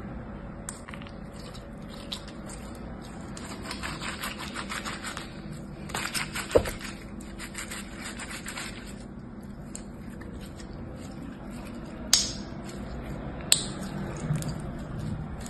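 Clear yellow-green slime squeezed and stretched by hand: a run of fine wet clicks and crackles, strongest in the middle, with three sharp louder pops, one in the middle and two near the end.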